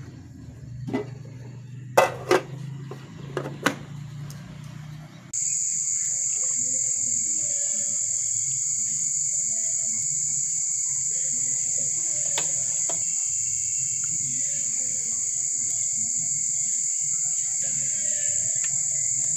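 A few sharp metal knocks as a ladle works in a cooking pot. About five seconds in, a loud, steady, high-pitched chirring of insects cuts in and goes on unbroken.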